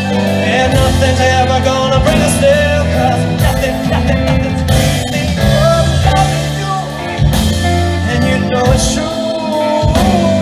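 Live music: a man singing into a microphone while playing a grand piano, with guitar and keyboard accompaniment.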